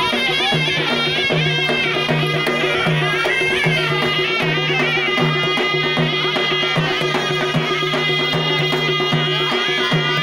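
Traditional Adivasi folk music for a wedding dance: a high melody that bends and wavers in pitch over a low tone pulsing in a steady rhythm.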